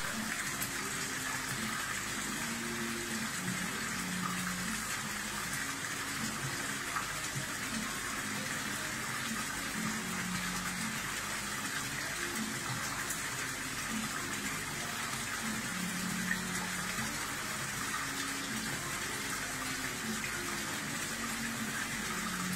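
Water pouring from a pipe outlet into a koi pond: a steady splashing gush at one even level, with faint low tones coming and going underneath.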